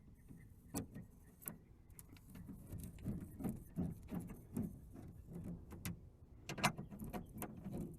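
Faint scattered clicks and light knocks from hands working a replacement car speaker into its mounting. It is being lined up in its slot and fixed in place, with a few sharper clicks about a second in and again near the end.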